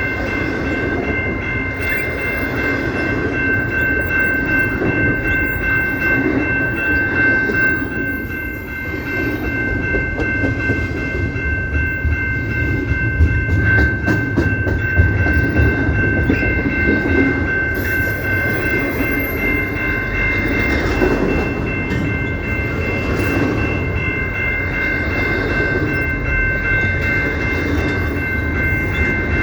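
Train rolling past: railcar wheels rumbling and clattering on the rails, with a steady high ringing tone held through it all.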